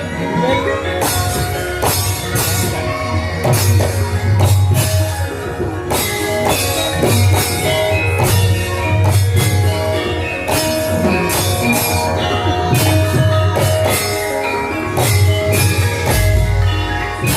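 Javanese gamelan ensemble playing an instrumental passage: ringing metallophone notes over repeated drum strokes and deep low tones.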